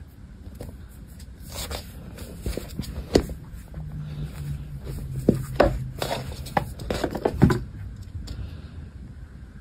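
A kitten scuffling at play on a wooden floor: irregular taps, knocks and scrapes, with a few sharper knocks in the middle, and a low steady hum under them for a few seconds.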